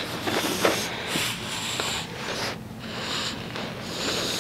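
English bulldog breathing and chewing close up as it bites and tugs a plush toy held in a person's hand: a steady rough, noisy sound with small irregular scuffs.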